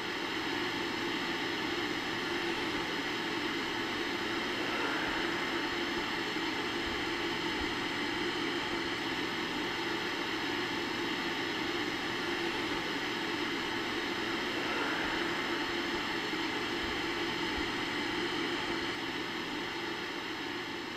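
Steady hiss of analog television static (white noise).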